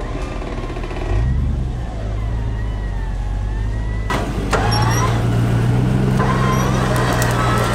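Off-road 4x4 SUV engine running under load on a steep climb. It rises about a second in and runs louder and steadier from about halfway. A sharp knock or crack comes about four seconds in.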